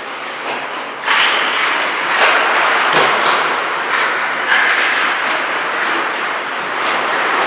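Ice hockey play: skates scraping the ice and sticks and puck knocking, with several sharp clacks. The rink's noise jumps sharply about a second in and stays loud.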